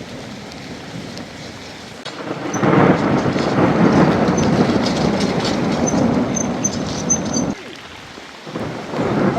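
Storm sounds: steady heavy rain, swelling into a loud rumbling rush about two seconds in. The rush cuts off abruptly near the end and returns just before the close.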